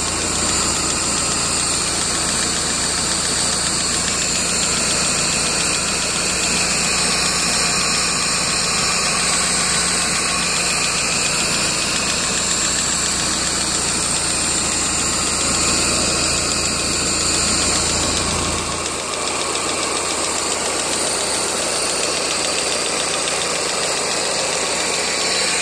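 1999 Mazda Miata's four-cylinder engine idling on all four cylinders with a steady tapping that sounds loudest above the #4 spark plug and persists despite valve lash set to spec and fresh oil. About two-thirds of the way through the low rumble drops away, leaving a steady hiss.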